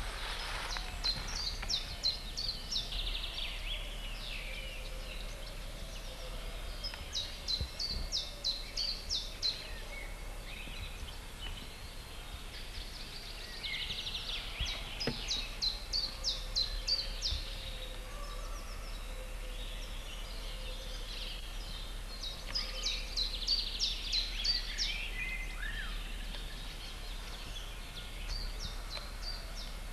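Songbirds singing: a short phrase of quick, high repeated notes that comes again about every five to six seconds, with softer chirps between, over a steady low hum.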